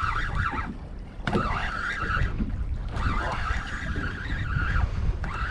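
Spinning fishing reel being cranked in two spells, a rough whirring as line is wound in, over wind buffeting the microphone on an open boat.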